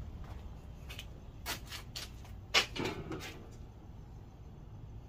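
A few light clicks, then one sharp knock about two and a half seconds in, with a short rattling tail and another click just after.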